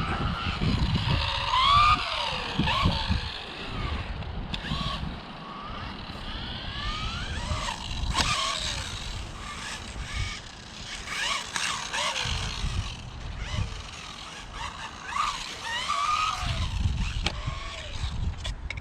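Rlaarlo AMX12 1/12-scale electric RC buggy being driven, its motor whining up and down in pitch again and again as it accelerates and lets off. Low rumbling comes and goes alongside, strongest near the start and near the end.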